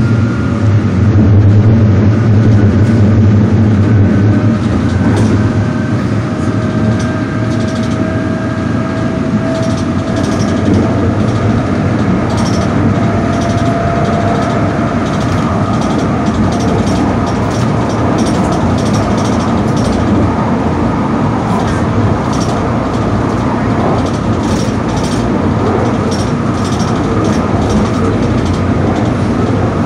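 Moving train running steadily, with a whine that slowly rises in pitch over several seconds as it picks up speed, and a string of light clicks through the second half.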